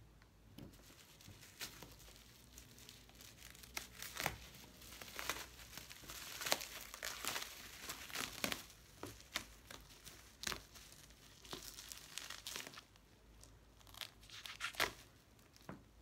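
Bubble wrap being torn open and pulled off a cardboard box by hand: plastic rustling with irregular sharp crackles, busiest in the middle stretch.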